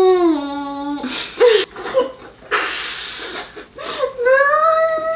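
Muffled, wordless voices of two girls with their mouths stuffed full of marshmallows: a long held hum at the start, breathy wheezing laughter in the middle, and a long rising muffled cry near the end.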